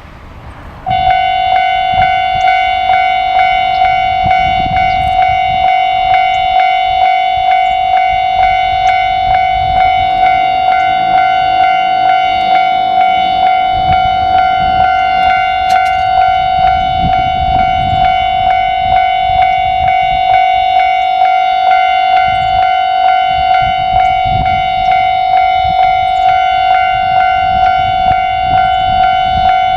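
Japanese railway level-crossing warning bell sounding its 'kan-kan' alarm. It starts about a second in and rings loudly at an even pace, signalling that a train is approaching.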